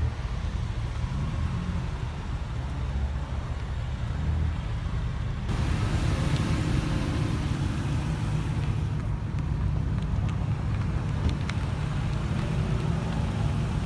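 Cars driving slowly past at close range, their engines running low at crawling speed with tyre noise on the asphalt. A louder, hissier sound comes in abruptly about five and a half seconds in.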